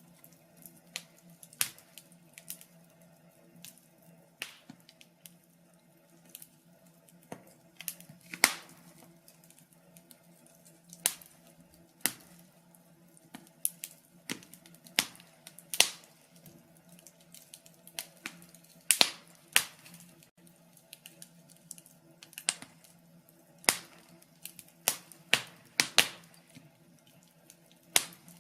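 Wood fire crackling in a fireplace: irregular sharp pops and snaps, from about one a second to a few seconds apart, several coming in quick runs about two-thirds of the way through and near the end. A faint steady low hum lies beneath.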